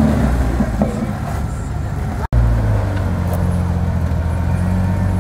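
Off-road Jeep engines working at low speed over rock. After an abrupt cut about two seconds in, a Jeep Cherokee XJ's engine runs steadily at low revs as it crawls with a front wheel lifted off the ground.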